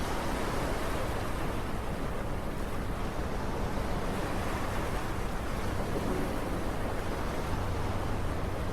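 Steady rushing sea-and-wind ambience, an even wash of noise with a faint low hum beneath it.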